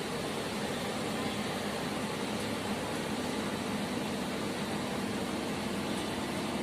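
Steady hum and hiss of running industrial air-compressor machinery: an even drone with a few faint steady tones and no change in pitch or level.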